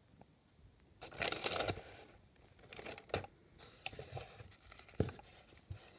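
Paper and cardboard packaging of a doll's box rustling as it is handled: a crinkling rustle about a second in, then scattered light taps and rustles, with two sharper knocks.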